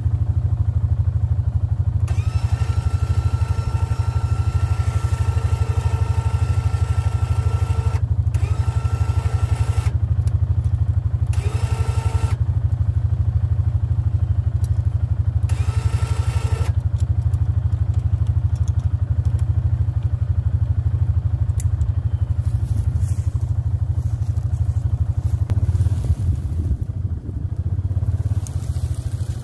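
Side-by-side UTV's 550cc engine idling with a steady low rumble, while its front electric winch whines in four runs, a long one of about six seconds and then three shorter ones, reeling in cable to stretch woven fence wire.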